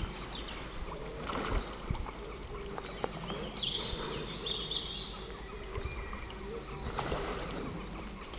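Carp splashing and sloshing at the pond surface while spawning: scattered small splashes and water knocks. Birds chirp about three seconds in.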